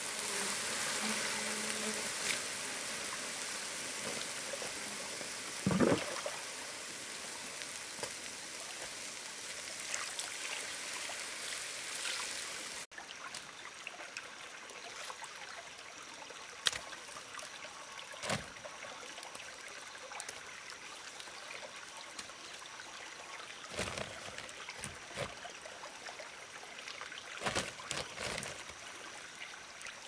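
Water flowing and trickling, with occasional short knocks and splashes. The sound drops and changes abruptly about 13 seconds in.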